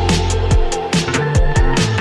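Background music: an electronic pop song in an instrumental passage between sung lines, with a steady drum beat and deep bass.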